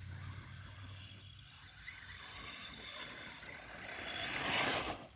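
Redcat Volcano EPX Pro brushless electric RC monster truck being driven, faint at first, then growing much louder about four seconds in as it runs nearer.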